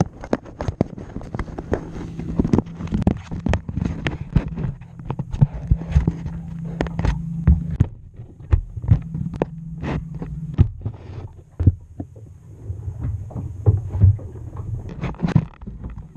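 Camera handling noise: irregular knocks, bumps and rubbing as the camera is jostled against plastic surfaces, over a low steady hum.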